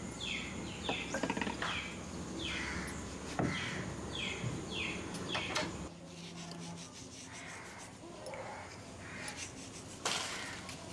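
A bird calling repeatedly with short falling chirps, about two a second, over outdoor ambience. The chirps stop about six seconds in, and a short knock sounds near the end.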